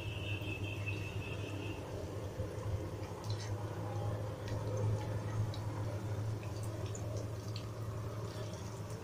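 Kachori patties frying in hot oil in a nonstick wok, with a soft sizzle and scattered small crackles and taps as a wooden spatula moves them about the pan. A steady low hum runs underneath, and a thin high tone sounds for the first couple of seconds.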